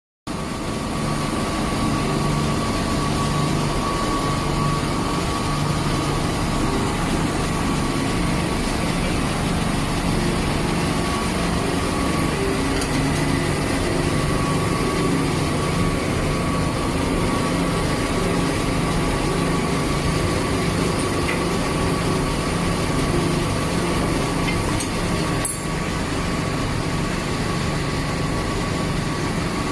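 Large electric pump motor running steadily, a constant machine hum with a thin high whine over it, with a brief click about three quarters of the way through.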